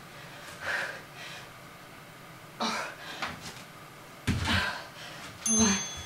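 A woman breathing hard from exertion: several sharp, gasping breaths a second or two apart, the loudest about four seconds in, with a short voiced grunt near the end.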